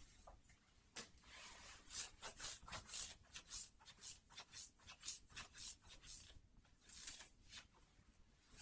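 Cotton socks being rubbed and handled close to the microphone: a faint run of soft, irregular brushing and rustling strokes.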